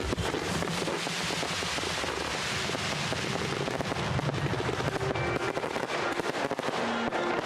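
Fireworks display: a dense, continuous crackle of many small rapid pops, with no single large bang standing out.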